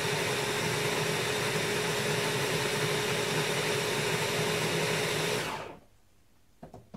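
Handheld stick blender running steadily in a glass jar, puréeing green curry paste ingredients, then winding down and stopping about five and a half seconds in.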